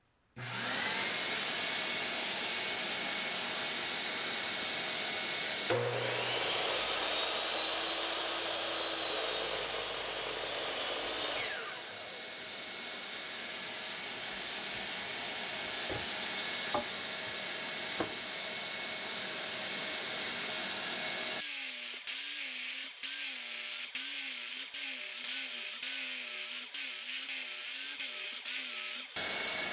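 A shop vacuum starts up and runs steadily with a constant whine, pulling dust from a Ridgid miter saw. About six seconds in, the saw motor spins up to speed and crosscuts a 2x6 in half, then winds down; a few sharp clicks follow as the board is slid along for further cuts.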